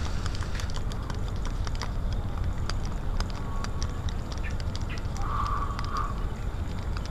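A steady low rumble with scattered light clicks, and a short animal call in two quick parts about five seconds in.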